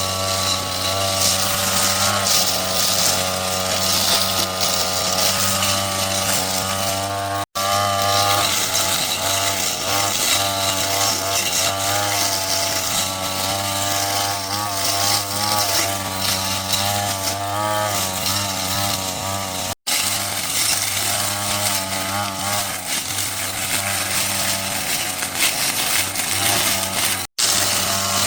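A motorised power tool running hard and continuously, its engine pitch wavering up and down as it works. It cuts out abruptly for an instant three times.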